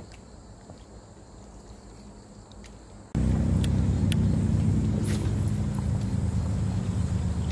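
About three seconds in, a small 1 hp outboard on a valley boat cuts in suddenly and runs on with a steady low hum. Before that there is only faint outdoor ambience with a few light ticks.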